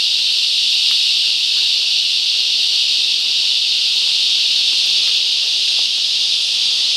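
Dense chorus of insects making a steady, high-pitched drone without a break.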